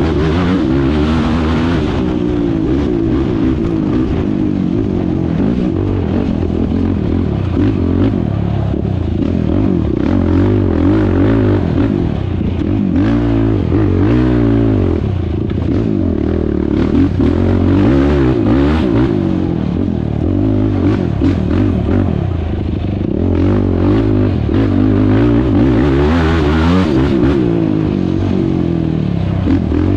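Sport quad ATV engine revving up and down continuously as it is ridden hard over a rough dirt trail, its pitch rising and falling with the throttle, with occasional knocks and rattles from the machine.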